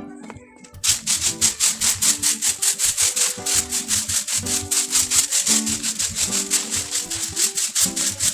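Background music: a melody over a fast, steady rattling beat, which comes in about a second in.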